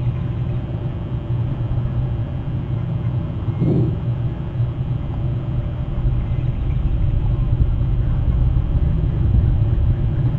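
A steady low rumble outdoors, with one short rising sound about a third of the way in.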